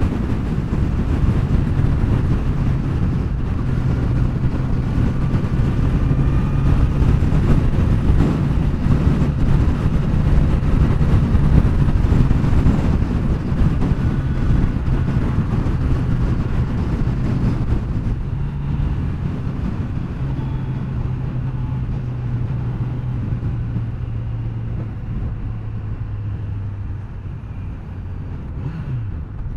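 Kawasaki Z900's inline-four engine running steadily at highway cruising speed, with wind rushing past. Over the last several seconds the engine drone drops a little in pitch and gets quieter as the bike slows.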